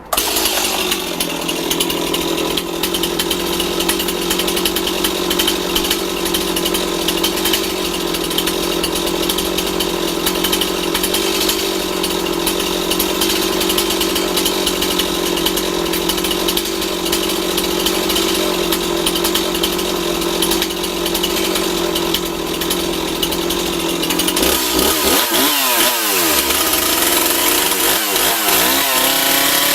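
STIHL MS 260 two-stroke chainsaw running at a steady idle, then revved up and down several times in the last few seconds.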